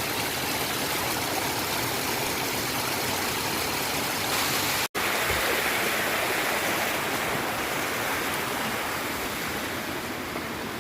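Steady rush of falling and running water, with a split-second break about five seconds in.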